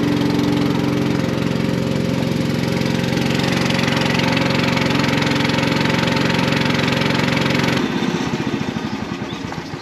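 Outboard motor of a small wooden river boat running steadily under way. About eight seconds in it drops abruptly to a lower, pulsing run as the boat comes in to the bank.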